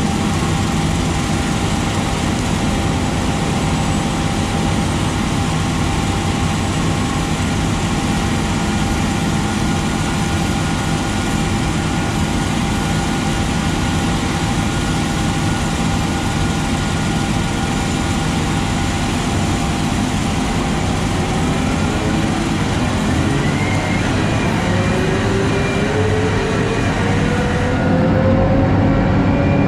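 John Deere 9520RX tractor running steadily while towing a loaded grain cart, with a heavy rumble of engine and running gear. Over the last several seconds its pitch climbs slowly as it picks up speed.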